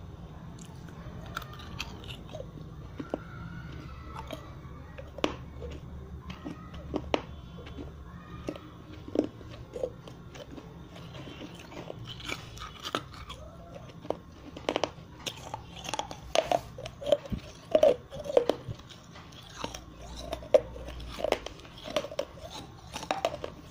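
Close-miked biting and chewing of a wet terracotta clay-pot piece: crisp crunches, scattered at first, then coming thick and fast from about halfway.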